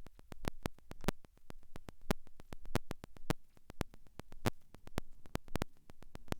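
Small hail pellets and raindrops ticking against the phone and its microphone: irregular sharp clicks, several a second.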